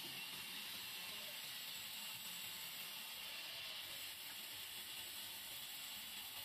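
Band saw running and ripping a timber beam lengthwise: a steady, even hiss with no change in pitch or level.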